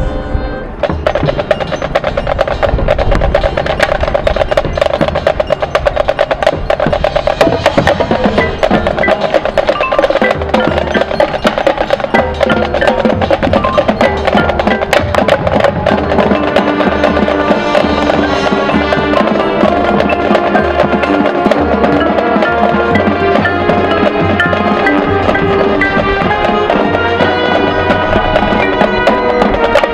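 Marching band playing its field show, percussion to the fore: a steady run of drum and mallet strokes over held pitched notes that come in about a second in.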